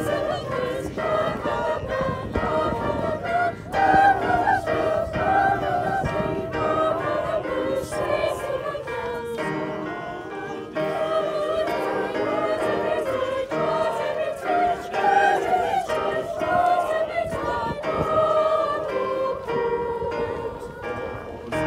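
A choir of adults and children singing a Christmas carol together.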